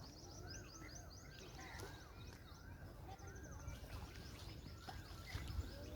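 Birds calling over a low background hum: a short rising-and-falling note repeated about twice a second, with rapid high trills.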